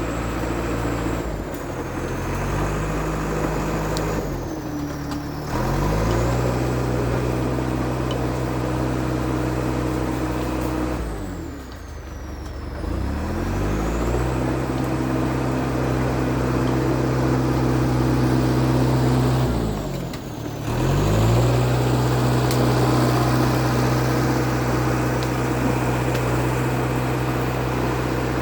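International Harvester TD8E crawler bulldozer's DT-239 diesel running steadily under work. Four times its speed sags and picks back up, a high whine falling and rising with it.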